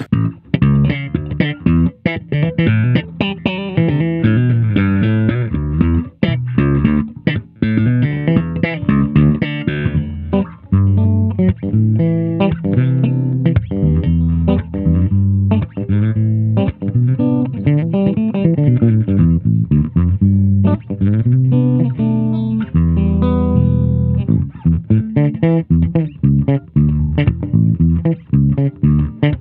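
Cunningham RLJ6 headless electric bass played solo, a continuous run of fast plucked notes with the treble knob boosted.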